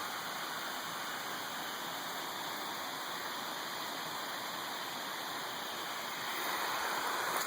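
Steady rushing of a mountain creek and waterfall, growing a little louder near the end.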